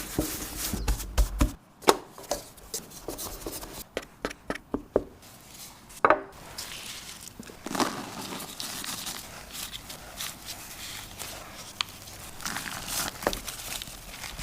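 Knife chopping food on a cutting board: a series of irregular sharp taps, with a quick run of them about four to five seconds in, then softer, sparser cuts.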